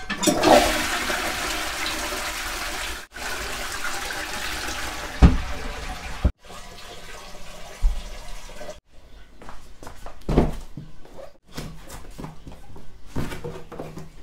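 Toilet flushing, water rushing loudly for several seconds, then quieter with a few dull thuds.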